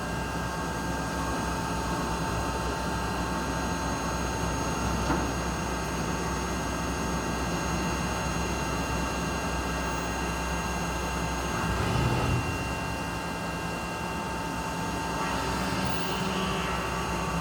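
UGINT UT650 vertical machining center running a cutting job: steady machine noise with several high, even whining tones. One of the highest tones stops about eleven seconds in, just before a short louder swell.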